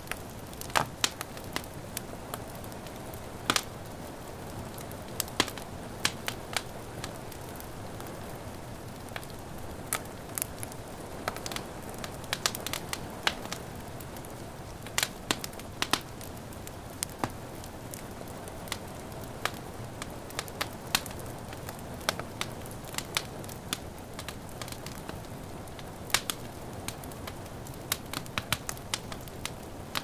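Wood fire crackling in a fireplace, with irregular sharp pops over a steady soft hiss of rain.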